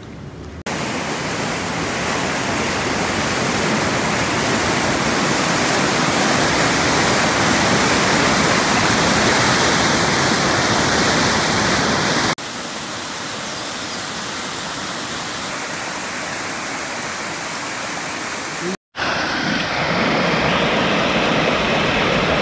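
Rushing water of river rapids, a steady loud hiss broken by sudden cuts a few times.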